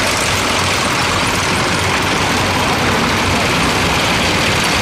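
Tracked self-propelled guns driving past in a column: a steady mix of heavy diesel engine hum and track noise.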